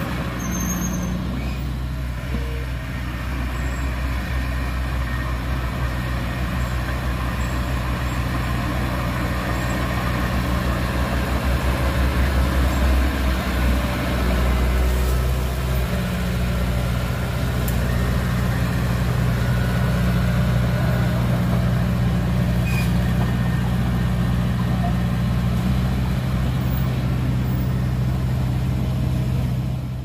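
Heavy diesel engine running steadily under load, working somewhat harder for a few seconds midway.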